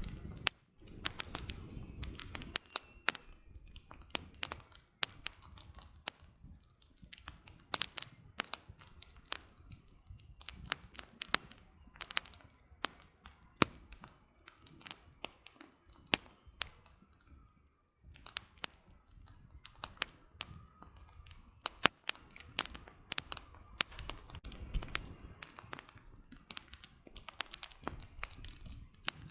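Wood campfire burning and crackling, with dense, irregular sharp pops and snaps from the firewood.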